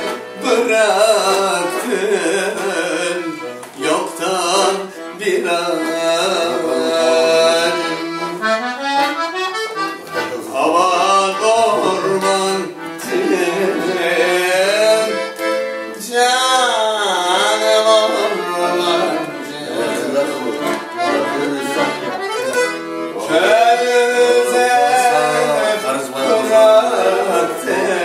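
Piano accordion playing a Turkish folk melody alone, quick and ornamented, with rising and falling runs.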